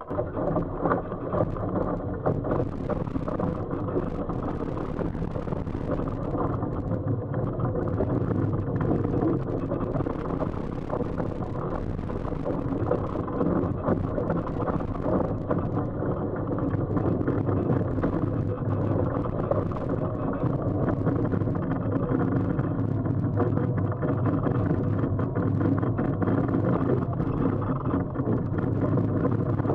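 Wind rushing over the camera microphone and water rushing and spraying off an RS600FF foiling dinghy sailing fast at around 14 to 17 knots. The noise is steady and full, with a faint steady hum underneath and many short gusty flicks.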